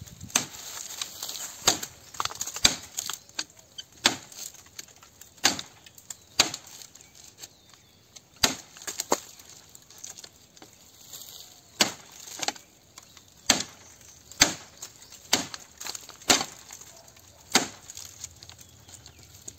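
A blade chopping into the base of a thick green bamboo culm: sharp, irregular strikes, roughly one a second.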